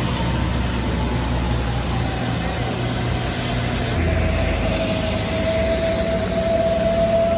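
Road traffic going by: diesel light trucks and motorcycles passing with a steady engine rumble and tyre noise. A steady whine slowly drops in pitch and gets stronger in the second half.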